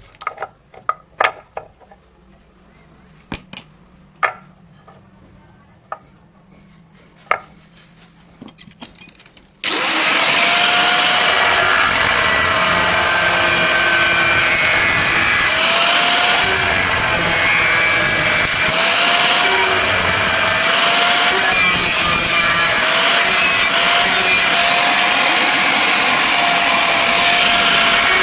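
Several sharp taps. About ten seconds in, a power tool starts abruptly and runs loud and continuously under load, its motor pitch sagging and recovering again and again as it bites into the work.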